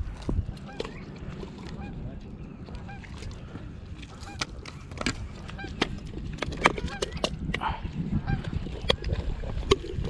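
Birds honking irregularly, among sharp clicks and taps, over a steady low rumble.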